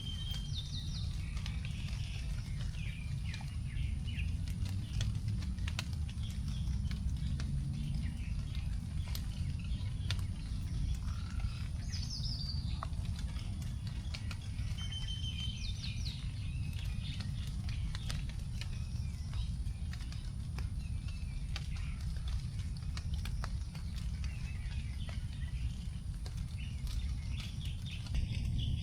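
Forest birds chirping and whistling on and off, with last raindrops dripping onto leaves in scattered ticks, over a steady low rumble.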